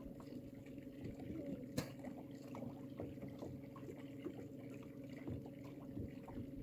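Water lapping and sloshing against a boat's hull over the steady low hum of the boat's motor at slow trolling speed, with one sharp click a little under two seconds in.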